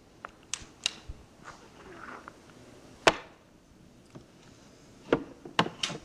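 About six sharp clicks and knocks at irregular intervals over faint tape hiss, the loudest about three seconds in and a quick cluster near the end.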